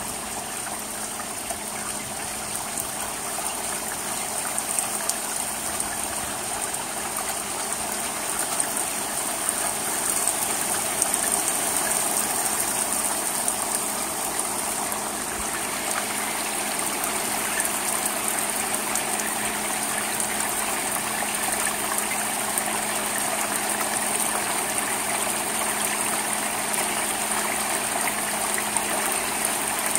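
Steady rain falling on an asphalt-shingle roof and its gutter: a continuous hiss of water, with many small drop taps, growing a little louder about ten seconds in.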